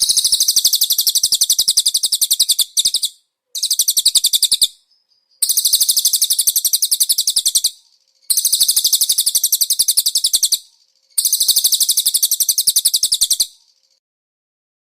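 Small songbird singing very fast, high-pitched rapid trills in five phrases with short pauses between them, from a bird-training song-tutor recording.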